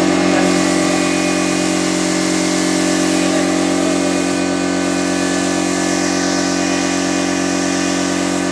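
Small portable piston air compressor running steadily, a constant mechanical drone with a steady hiss over it.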